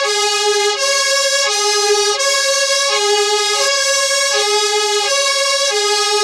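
UK fire engine two-tone siren sounding steadily at an even loudness. It alternates between a lower and a higher note, each held for under a second, about four high-low cycles in all.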